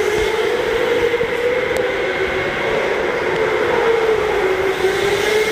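Electric go-karts running round an indoor track: a steady motor whine that wavers slightly in pitch as the karts pass.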